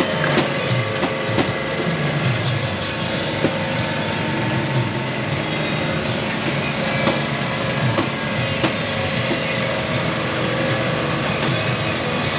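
Busy night-market stall ambience: overlapping crowd chatter and a steady background hiss, with scattered clinks and knocks.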